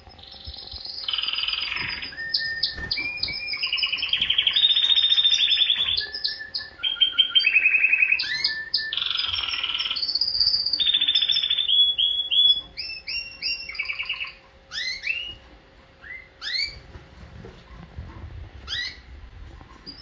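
Canary singing: a long song of rapid trills that jump from one pitch to another. About twelve seconds in it breaks up into short, separate rising chirps.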